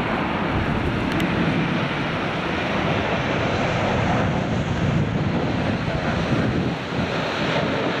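Jet engine noise from a KLM Boeing 777-200ER's GE90 turbofans on final approach, passing close, mixed with strong wind buffeting the microphone; a steady, even rush of noise.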